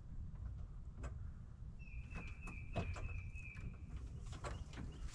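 Faint scattered clicks and knocks over a low rumble, from hands working on metal in an old truck's engine bay, with a short high-pitched trill of about two seconds near the middle.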